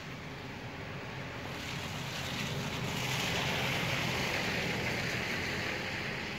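A vehicle passing on a wet, slushy road: tyre hiss swelling to a peak about three to four seconds in, then easing, over a low road rumble.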